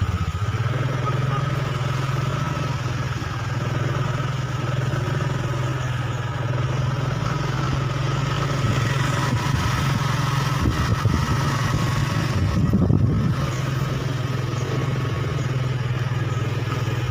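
Motorcycle engine running at a steady pace with a constant low drone and road noise, briefly rougher about three-quarters of the way through.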